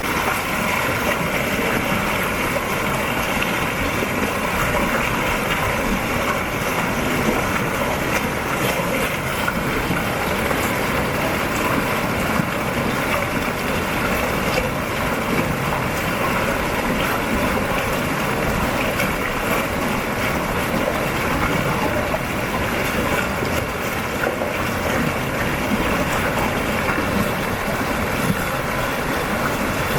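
Water flowing over a small stone dam: a steady, unbroken rushing.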